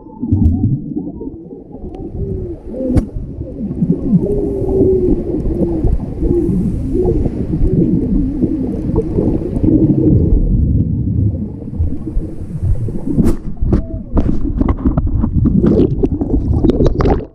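Muffled underwater sound of water gurgling and bubbling around a submerged GoPro action camera, with many short wavering bubble tones. Scattered sharp knocks and clicks come near the end.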